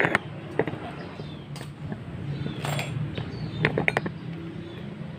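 Scattered sharp metallic clinks and knocks, about half a dozen, two close together near the end, from a metal pipe being handled, over a low steady hum.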